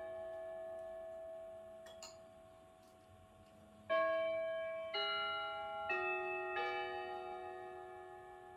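Kienzle grandmother clock's chime playing a melody. A struck note rings and dies away. About four seconds in, four more notes of different pitches follow in quick succession, each ringing on and fading.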